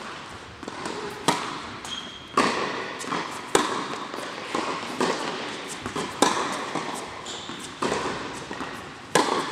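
Tennis rally on an indoor hard court: a string of sharp racket strikes and ball bounces, several of them loud, each echoing in the hall.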